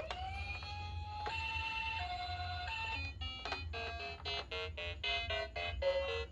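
Toy ambulance's electronic siren: a tone sweeps up and holds, then alternates between a higher and a lower note, stopping about three seconds in. A quick electronic tune of short beeping notes follows from about three and a half seconds in.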